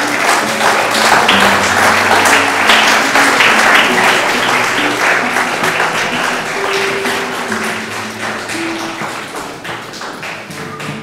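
Audience clapping over instrumental music. The applause is heaviest in the first few seconds and thins out towards the end, while the music carries on.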